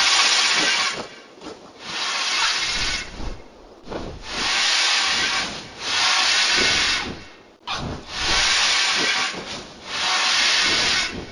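Creature sound effect for a fictional giant bird: a series of about six breathy hisses, each lasting a second or so, with short gaps between.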